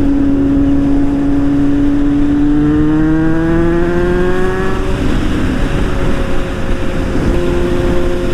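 Motorcycle engine under way, its pitch rising steadily for about five seconds as the bike accelerates, then holding steady, over a constant rush of wind and road noise.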